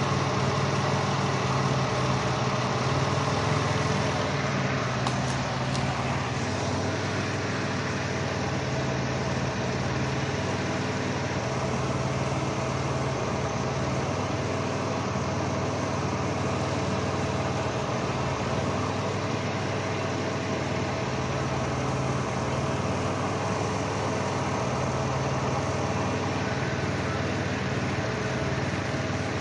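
Caravan minivan engine idling steadily with a cylinder #1 misfire (code P0301), caused by an open ignition wire on that cylinder.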